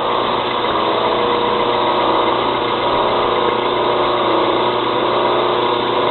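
Knife-making belt grinder running steadily with a Norton Blaze abrasive belt, a constant motor hum and belt whir with several steady tones. The belt is running on a tensioning wheel angled down, the only setting at which it stays on.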